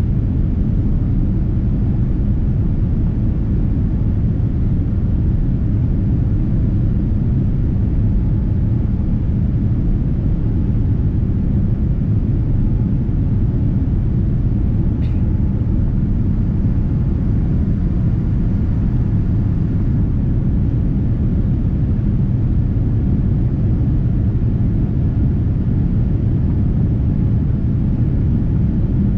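Steady low rumble of engine and airflow noise inside the cabin of a Boeing 787-9 airliner in flight.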